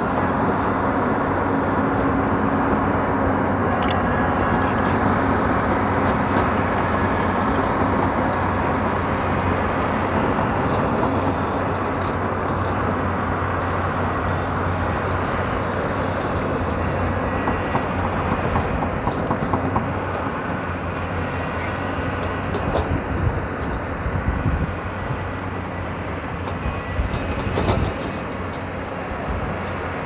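Hyundai crawler excavator's diesel engine running steadily under load, with scattered knocks in the last few seconds.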